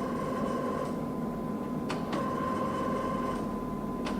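TOS SUS 80 engine lathe's geared drive whining steadily during rapid traverse of the carriage. The whine stops and restarts as the traverse is switched, with a few sharp clicks from the controls being thrown.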